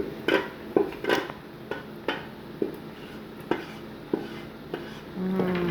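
Pieces of cow leg dropped into a metal stew pot, clattering and clinking against it in about ten irregular knocks.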